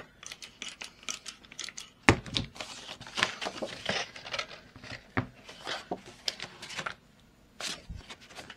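Rustling and crinkling of a sheet of patterned paper being handled and fitted onto the metal rings of a ring-bound journal, with many small clicks. One sharp, loud click comes about two seconds in.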